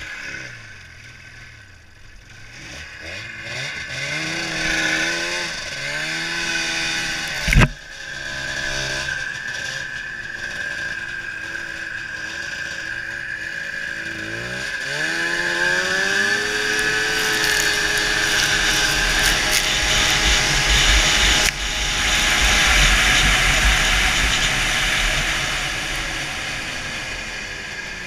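1996 Ski-Doo MXZ 583's two-stroke twin engine revving up as the sled works through deep powder, with one sharp bang about seven and a half seconds in. It revs up again about fifteen seconds in and settles into a high, steady run with a rushing hiss over it.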